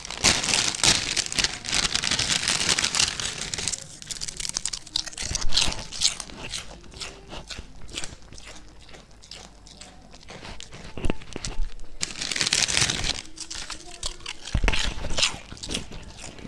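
A goat chewing and crunching potato chips: dense, crisp crunching for the first few seconds and again about twelve seconds in, with scattered single crunches in between.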